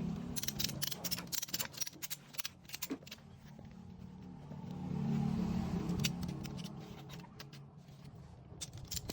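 Metal tools clinking and clicking in irregular runs of sharp ticks, with a low hum rising and fading around the middle.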